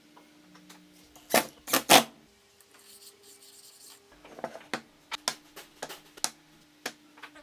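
Workshop handling sounds: three loud sharp knocks in quick succession about a second and a half in, then a run of lighter clicks and taps over a faint steady hum.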